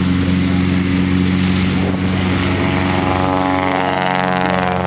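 Light aircraft's piston engine and propeller running steadily, with a second engine note rising in pitch from about three seconds in, as power is brought up.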